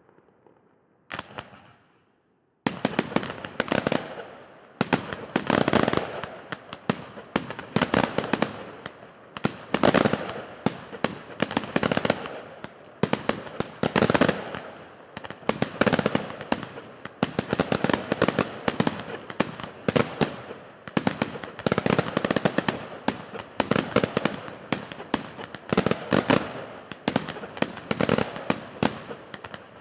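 Fireworks display going off. After a short burst about a second in, rapid volleys of sharp bangs and crackling start about two and a half seconds in and keep going densely, with a fresh loud salvo every second or two.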